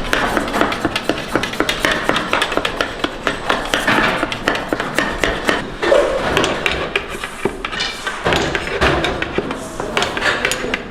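Busy workshop clatter: rapid, irregular knocks and taps of hand tools on work surfaces, with clinks of metal trays and utensils.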